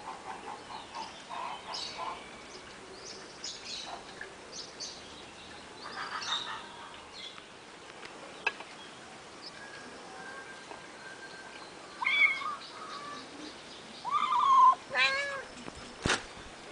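Young kittens meowing: one short call about twelve seconds in, then a run of loud meows near the end, with a sharp click just after. Small birds chirp and a rhythmic clucking runs through the first couple of seconds.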